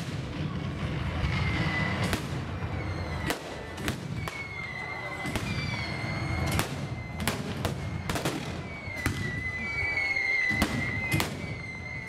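Staged battle pyrotechnics: a rapid, irregular string of sharp bangs and blasts, more than a dozen of them, over a low rumble.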